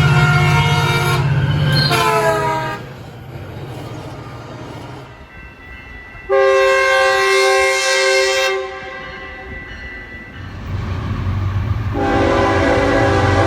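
Three train horns one after another. First a Metrolink MP36PHI locomotive's Nathan P2 horn blows over the engine's rumble, its chord dropping in pitch as it passes and cutting off near three seconds in. Then a Metrolink cab car's Nathan K2 horn gives one steady blast of about two seconds, a little after six seconds in; finally a BNSF locomotive rumbles closer and its Nathan K5HL horn starts about twelve seconds in.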